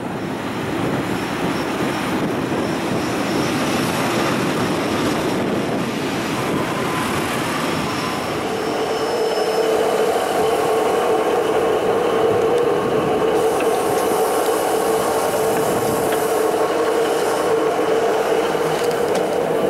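Passenger train running into the platform close by: a rising rumble of the carriages, then a steady high squeal of wheels and brakes from about eight seconds in as it slows.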